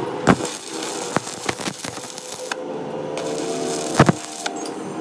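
Stick (arc) welding on the teeth of a truck differential pinion gear: the electrode's arc gives a continuous crackling hiss, with loud sharp pops about a third of a second in and about four seconds in. The hiss drops away for about half a second around three seconds in, then picks up again.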